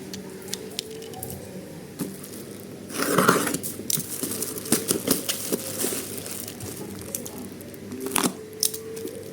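Plastic packaging crinkling and tearing as it is handled, with scattered sharp clicks and a louder burst of crackling about three seconds in.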